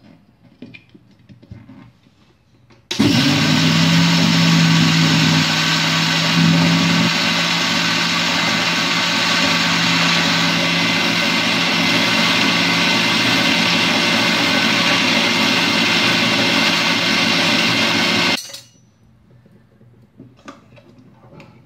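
Electric mixer grinder with a steel jar running for about fifteen seconds, grinding soaked rice, urad dal and fenugreek seeds with a little water into coarse idli/dosa batter. It starts suddenly about three seconds in and cuts off suddenly near the end, with a deeper hum in its first few seconds that then eases to a steady run.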